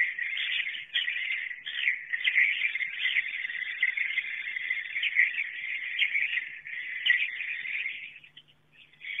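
Edible-nest swiftlets giving their night roosting call: a dense, continuous twitter of many high chirps. Near the end the chirping thins out and almost stops for about a second, then resumes.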